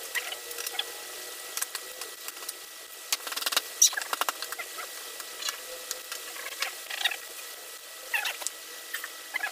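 Irregular clicks, taps and rustling from the plastic and padded parts of a gaming chair being handled and fitted together, busiest about three to four seconds in, with a few short squeaks near the end.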